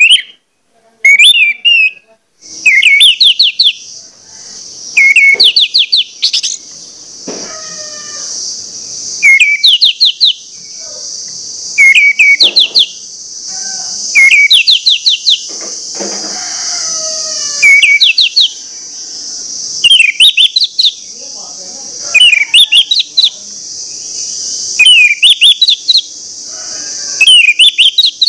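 Orange-headed thrush (anis merah) singing its full, insistent song: the same short phrase repeats about every two and a half seconds, each a quick run of rising whistled notes. A steady high hiss runs behind it from a couple of seconds in.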